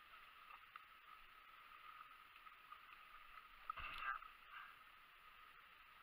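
Near silence with a faint steady hum and hiss, broken about four seconds in by a short scuffle of brush and water as a hand lunges at a hooked brook trout splashing at the bank's edge.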